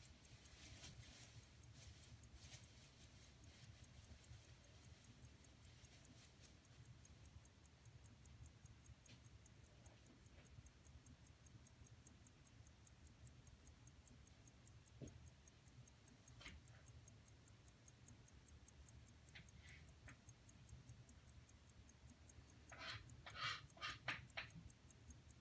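Vintage Winton Watch Co 15-jewel chronometer watch movement running, ticking faintly and evenly at about five ticks a second. A short cluster of louder clicks comes near the end.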